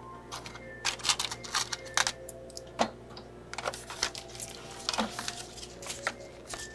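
Keys on a shop's cash-register keypad clicking in quick, irregular taps, with a few short electronic beeps.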